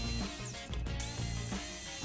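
Background music: sustained notes over a repeating bass line.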